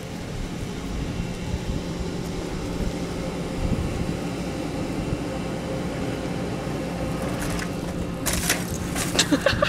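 Steady low outdoor rumble with a faint hum. Near the end a bicycle hits a gravel jump: a quick run of crunching and clattering from the tyres and bike on the gravel, followed by a short voice-like cry.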